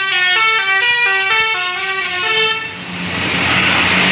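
Bus basuri telolet air horn playing a quick melody of short stepped notes, stopping about two and a half seconds in. A rushing noise with a steady low engine hum follows.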